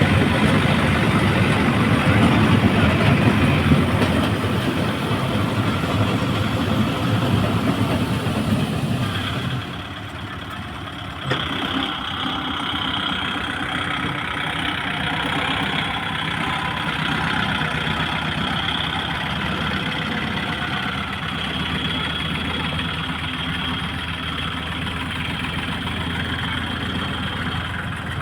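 Tractor engine running while the tractor works the soil. Its sound drops a little in level about ten seconds in, then runs steadily with a faint high whine.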